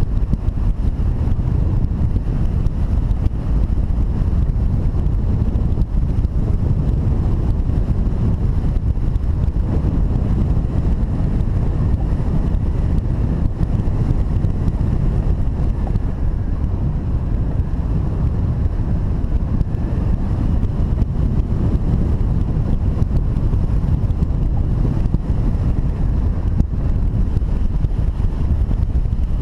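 Steady, loud wind rushing and buffeting over the microphone, the airflow of a hang glider in flight.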